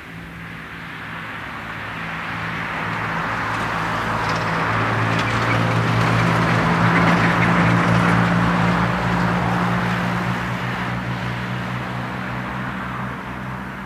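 Boeing 747-400's four Pratt & Whitney PW4000 turbofans running as the airliner rolls out on the runway after landing: a steady jet noise with a low engine drone beneath it. It swells as the jet passes, peaks about halfway through, and then fades.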